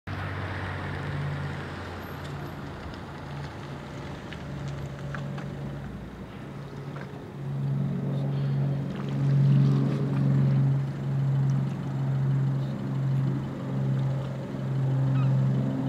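A large ship's engines, heard across the water as a low, steady hum with a slow throb of about one beat a second. The hum grows louder about halfway through as the cruise ship Oriana draws nearer.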